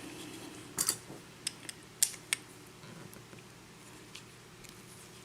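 A few sharp metallic clicks and taps as a lock cylinder and tools are handled, bunched in the first couple of seconds, then quiet handling.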